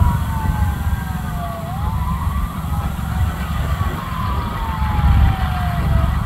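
Ambulance siren wailing in slow sweeps, its pitch rising and then falling steadily every couple of seconds, over a steady low rumble of highway traffic.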